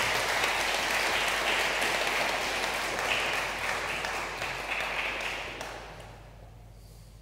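Audience applauding, the clapping tapering off and dying away about six seconds in.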